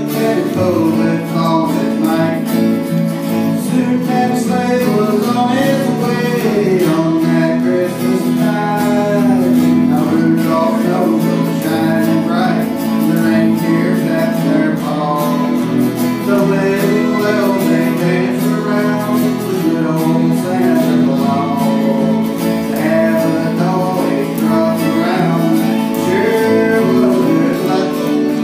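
Live country-style guitar band playing an instrumental passage in the key of A: strummed guitar chords under a moving picked melody line.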